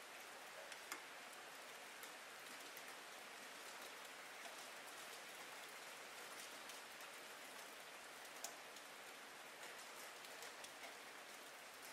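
Faint, steady rain with scattered individual drops ticking through the hiss.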